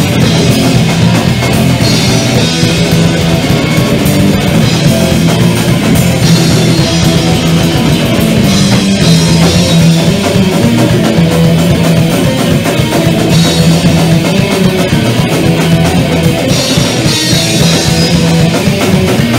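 Live thrash metal band playing loud: electric bass and electric guitar over a drum kit.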